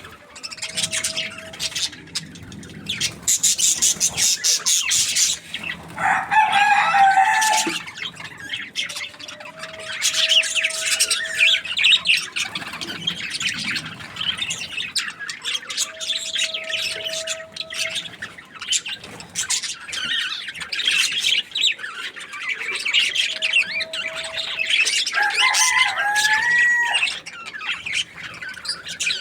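Budgerigars chirping and warbling in a continuous busy chatter of quick high chirps. A steadier, lower note about a second long comes in four times, roughly every seven seconds.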